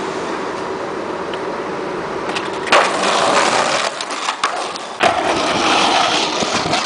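Skateboard wheels rolling on pavement, louder from about three seconds in. The board gives sharp clacks as it strikes the ground, once at about three seconds and again at about five.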